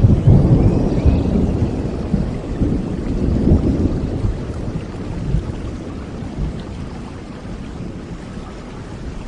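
A thunder rumble dying away over several seconds, over steady rain.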